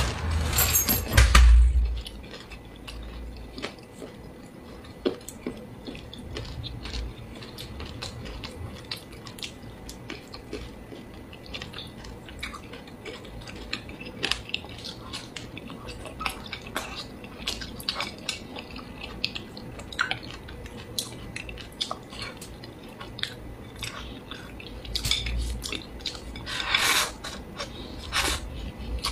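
Close-miked eating: chewing and wet mouth sounds as spicy squid and greens are eaten, with frequent small clicks of wooden chopsticks against the bowl. There are louder bursts of mouth noise in the first second or two and again near the end.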